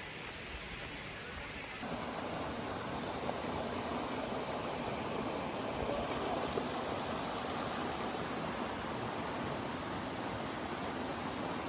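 Steady rushing of a waterfall and river, stepping up in level about two seconds in.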